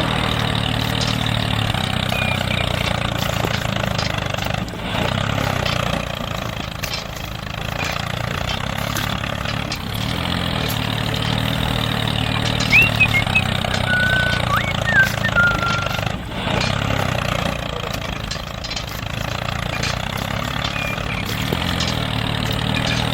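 Small tractor engine running steadily at idle, with a few short high chirps about two-thirds of the way through.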